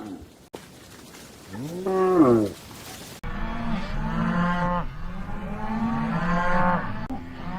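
Cows mooing: one moo that rises and falls in pitch about two seconds in, then several long moos overlapping, as from more than one cow. There are abrupt cuts between recordings.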